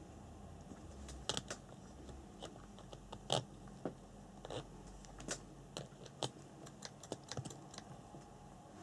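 A hand handling a radio-controlled buggy's wheel and chassis parts: a scatter of light, irregular clicks and taps, starting about a second in, over a faint low hum.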